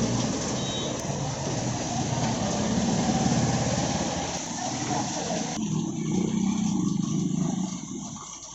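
A motor vehicle's engine drones low and steady under the hiss of heavy rain. The rain hiss cuts away sharply about five seconds in, and the engine sound fades out near the end.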